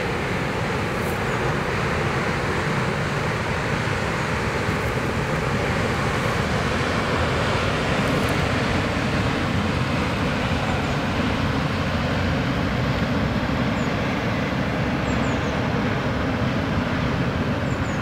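Steady rumble and water rush of a passing coastal container ship, from its eight-cylinder MaK 8L40/54 diesel and its bow wave, growing slightly louder as the ship draws level.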